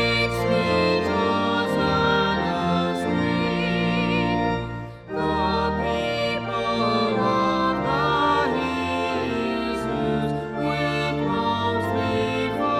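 Music with sustained, changing chords, briefly dropping away about five seconds in before carrying on.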